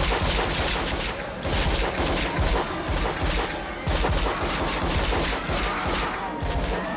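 Several handguns firing rapidly at once, shots overlapping in a continuous volley.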